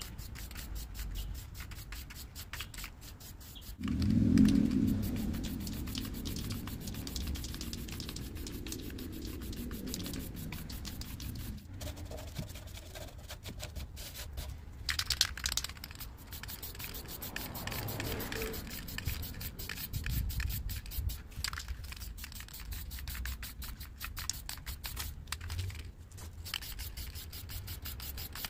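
Aerosol spray paint can hissing in short bursts as paint goes onto the car's bodywork. A louder low rumble comes about four seconds in.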